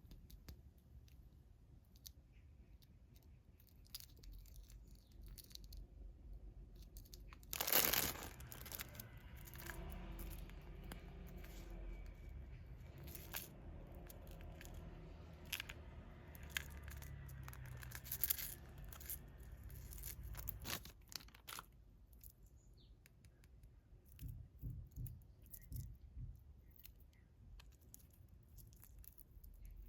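Toy packaging being torn open and crinkled by hand, with scattered small clicks and handling noises. The loudest rip comes about eight seconds in, and the handling is busiest for the next dozen seconds.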